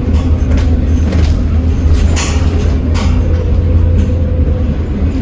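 A steady, loud low mechanical rumble with scattered clicks and rattles.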